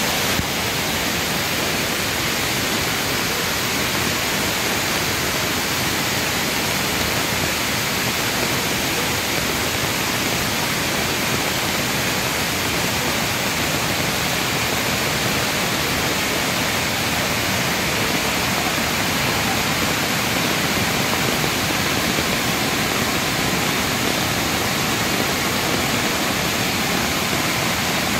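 Waterfall running, a constant, even rush of falling water, with heavy rain falling.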